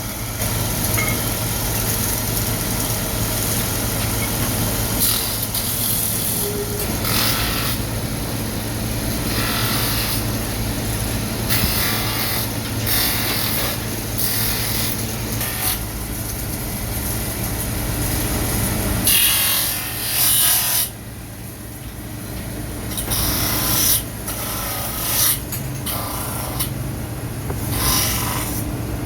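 Factory metalworking machinery running with a steady low hum, overlaid by repeated bursts of harsh rasping noise, each lasting about a second.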